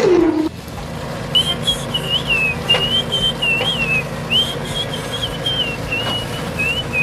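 A high whistled tune in short wavering phrases that rise and dip, over a steady low hum. At the very start a held tone slides down in pitch and stops.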